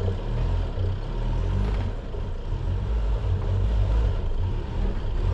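Four-wheel drive vehicle driving slowly along a rough dirt forest track: a low, uneven rumble of engine and tyres over the ruts.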